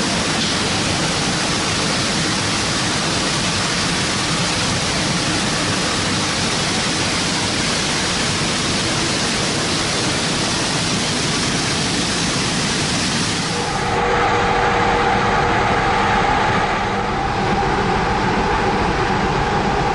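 Steady noise of a trawler's fish-processing deck: water running through the bleeding tank and steel conveyors carrying fish. About 14 seconds in it changes abruptly to a different steady machine hum with a few held tones.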